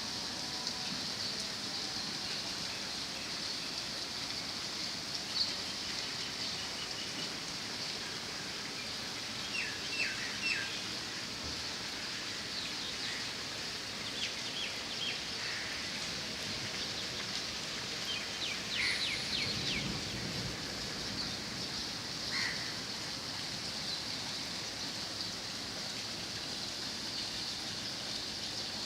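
Steady rain hiss, with birds chirping in a few short runs of quick calls in the middle stretch.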